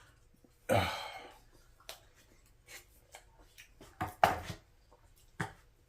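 Close-up eating sounds: a utensil clicking and tapping against a microwave-meal container a few times, with a short noisy burst about a second in.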